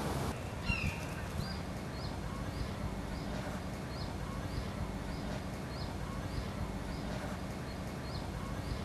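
A bird calling a short high chirp over and over, about twice a second, with one louder falling call just under a second in, over a steady low background rumble.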